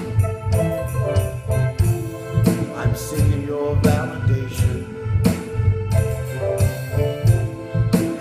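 A man singing a slow song over instrumental accompaniment, with a bass line, held notes and regular percussion hits.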